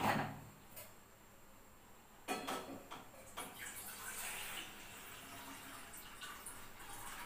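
Steel pots clank against the stovetop twice. A few seconds in, a gas burner is lit and hisses steadily under the pot.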